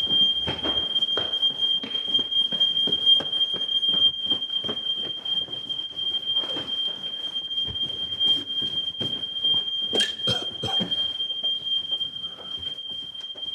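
Smoke alarm sounding a steady, high-pitched tone without a break, over scattered knocks and clatter, with one loud bang about ten seconds in.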